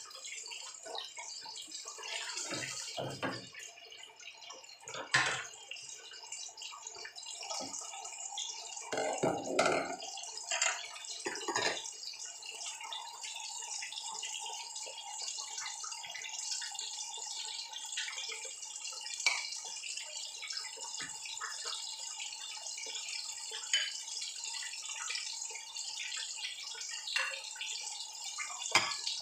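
Fish cake frying in hot oil in a pan, a steady sizzle, with scattered clacks and scrapes of a metal utensil against the pan.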